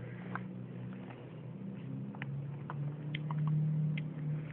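Small clicks and taps of a plastic milkshake cup with a dome lid and straw, handled for a first sip, over a low steady hum.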